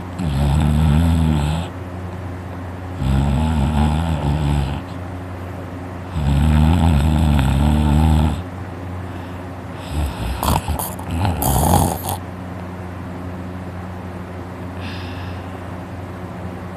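A person snoring loudly in deep, wavering breaths: three long snores about three seconds apart, then a shorter, broken run of snorts. The snorer puts the snoring down to the uvula vibrating.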